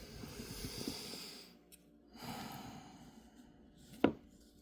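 Two breaths, the first lasting about a second and a half, then one sharp click about four seconds in as small knife parts are handled.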